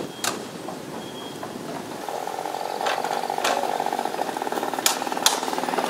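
Small motorcycle engine running as it rides over a wooden plank bridge, coming in about two seconds in and growing louder, with sharp knocks from the loose planks under the wheels several times.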